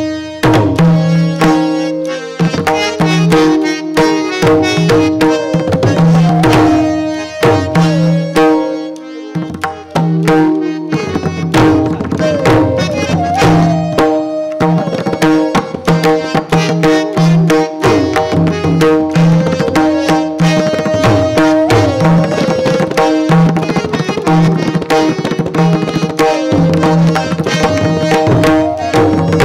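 Two mardala, the double-headed barrel drums of Odissi music, played in duet with fast, dense hand strokes, over a harmonium holding a steady repeating melody.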